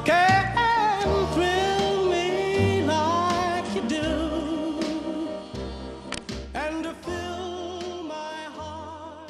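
A song: a solo singing voice with vibrato over instrumental backing, fading out over the last few seconds.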